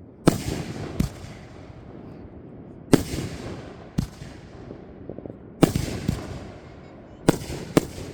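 Fireworks going off in a series of about seven sharp bangs, coming roughly in pairs a second or less apart, each trailing off in an echoing rumble.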